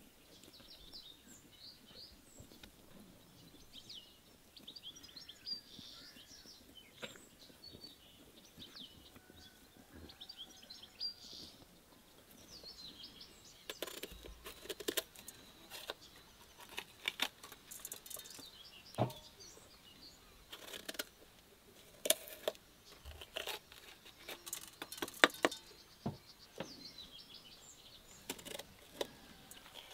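Birds chirping faintly for the first half. From about halfway on, sharp crisp snaps and crunches as green bell peppers are cored with a knife, the stem end cut out and the cores dropped into an enamel bowl.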